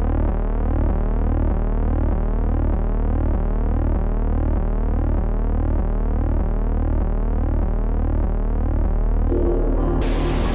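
Synthesized electronic intro tone: a steady low drone pulsing about twice a second under repeating rising sweeps. Near the end a rush of hissing noise comes in.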